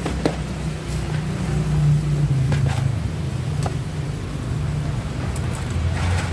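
Low, steady engine rumble of motor traffic, its pitch shifting as vehicles pass, with a few faint clicks over it.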